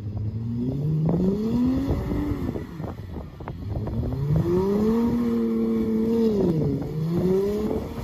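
SUV engine revving up and down in repeated surges as its tyres spin on snow over a sheet of ice, struggling for grip. The pitch rises three times, the longest surge held for about a second and a half before dropping.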